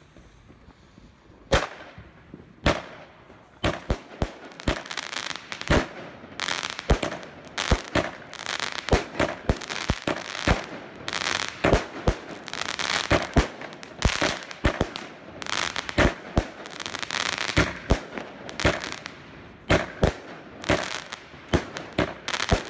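A 25-shot firework cake, the Jorge JW05 Pluton, firing its shots one after another. Each shot is a sharp launch bang and an airburst of stars. The shots start about a second and a half in, come in a quick irregular barrage with a hiss between the bangs, and are still going at the end.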